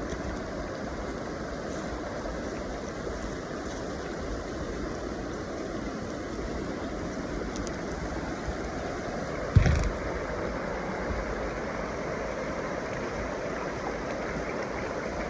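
River water rushing steadily, with a single thump about ten seconds in.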